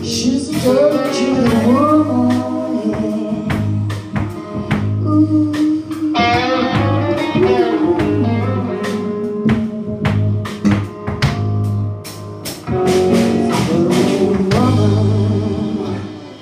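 Live blues band playing: a woman singing over electric guitar, bass guitar, drums and keyboard. The sound drops away sharply just before the end, as the song ends.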